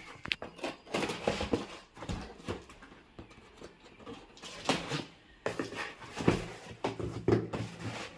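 A large cardboard box being handled and opened by hand: irregular rustling, scraping and knocks of the packaging.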